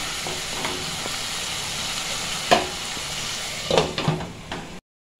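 Tomato-onion masala sizzling in a nonstick pan as a wooden spatula stirs it, with a sharp tap about halfway through. Near the end a glass lid is set down on the pan with a clink, the sizzle drops away, and the sound cuts off suddenly.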